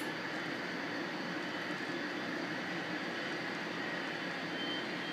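HO-scale model freight cars rolling along the track in a steady, even rumble, with a low room hum underneath.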